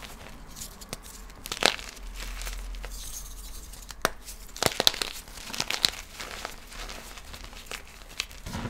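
Light blue reformed gym chalk being crushed and crumbled, giving irregular crisp crunches and crackles over a soft powdery hiss, with the sharpest cracks about a second and a half in and again around five seconds in.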